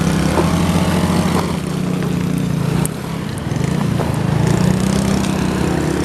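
Small motorcycle engine running at low revs, its pitch dipping a little twice and then rising again.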